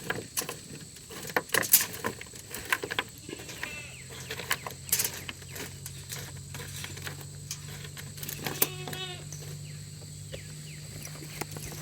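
Food-prep handling sounds: irregular clicks, knocks and rattles as ingredients and foil are handled. A low steady hum sets in about four seconds in.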